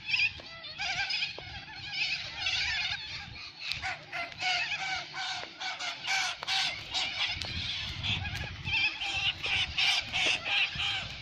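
Many birds calling and chattering over one another in quick repeated calls, with a low rumble underneath.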